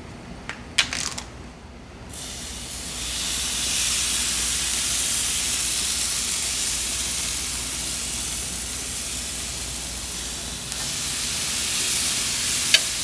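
Marinated raw chicken breasts sizzling on a hot gas grill grate. A steady sizzle starts about two seconds in as the first breast goes down and gets louder again near the end as a second breast is added. Before it come a few light clicks of a fork and tongs on a plate.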